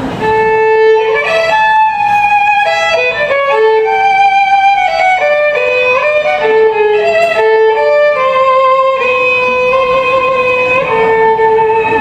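Solo violin playing a slow, classical-style melody, opening on a long held A and moving through sustained notes with vibrato.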